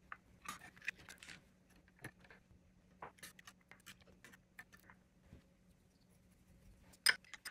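Metal spoon and fork scraping and tapping against a plastic cottage cheese tub, a mandarin orange can and glass bowls: scattered light clicks and scrapes, with a sharper couple of clicks near the end.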